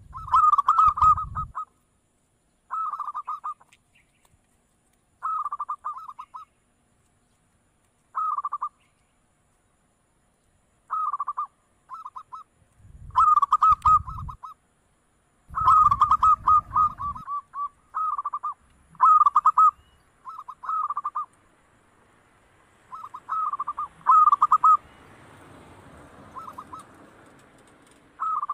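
Zebra dove (perkutut) cooing: short phrases of quick, repeated notes, one every one to three seconds. A low rumble sits under a few of the phrases.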